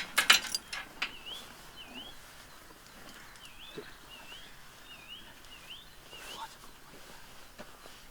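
A bird calling, repeating a short up-and-down note about seven times. A quick run of sharp knocks and clatter right at the start is the loudest sound.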